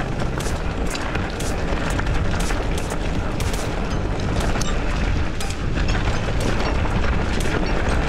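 Wind rumbling and buffeting on the camera microphone during a mountain-bike descent, under background music with a steady beat of about two a second.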